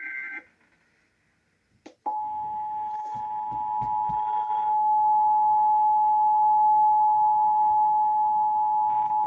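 The last half-second of an Emergency Alert System digital header burst, then about two seconds in the EAS two-tone attention signal (853 and 960 Hz sounded together) starts and holds steady. It is the warning that precedes a broadcast emergency alert, here an Amber Alert.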